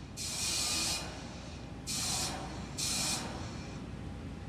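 Three short bursts of hissing, each under a second: a fuelled rocket on the launch pad venting propellant boil-off gas.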